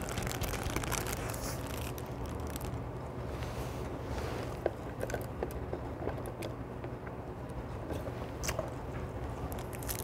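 Close-up eating sounds of a person biting into and chewing a burger, with crunchy bites and moist chewing clicks, and a short sip through a straw near the middle.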